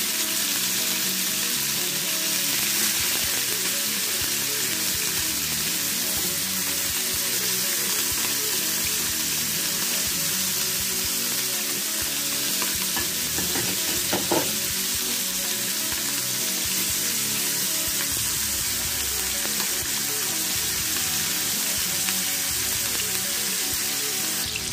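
Chapila fish shallow-frying in hot oil in a nonstick pan: a steady sizzle, with a brief clatter of metal tongs about halfway through.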